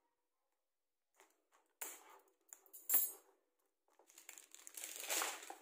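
Plastic shrink-wrap being cut with scissors and pulled off a cardboard box: quiet at first, then crinkling in short bursts with one sharp crackle about three seconds in, and a longer spell of crinkling near the end.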